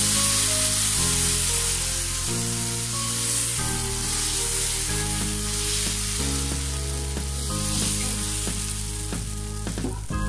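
Thin rice-flour batter sizzling steadily as it is drizzled from a squeeze bottle onto a hot, oiled pan. Background music with held low notes changing about once a second plays under it.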